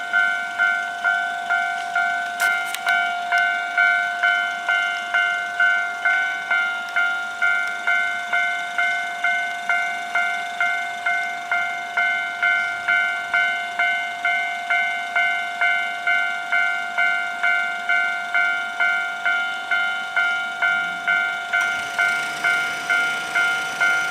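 Japanese level-crossing warning bell ringing in a steady, even clang, about three strikes every two seconds. A train's running noise comes in under it near the end.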